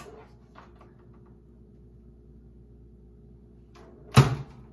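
Kitchen handling sounds at a countertop toaster oven: faint small clicks and clatter as toasted waffles are taken out, then one sharp, loud knock about four seconds in. A low steady hum runs underneath.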